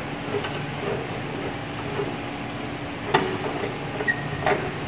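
Light metal clicks and knocks as a steel tube is set in the vise of an abrasive cut-off saw and the vise handle is worked, with two sharper clicks about three and four and a half seconds in. A steady low hum runs underneath.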